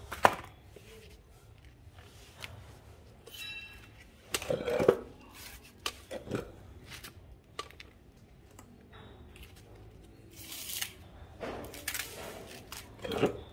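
Handling noise of used metal machine parts on cardboard. A sharp knock at the very start as a part is set down, then scattered knocks, rustles and short scrapes.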